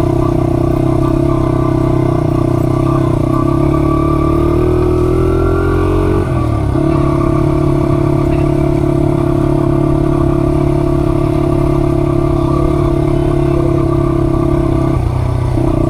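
Small ride-on vehicle's engine running under way. Its pitch rises steadily for a few seconds, drops suddenly about six seconds in, then holds steady, with a brief dip near the end.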